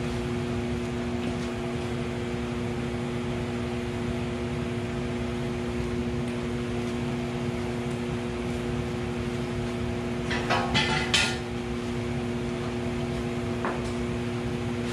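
Steady electric motor hum in a garage workshop. About ten seconds in there is a brief clatter of several sharp knocks, and a single tick comes near the end.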